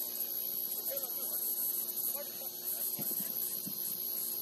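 Steady electrical hum with a constant high-pitched hiss, under faint, distant voices calling. There are a couple of soft thumps about three seconds in.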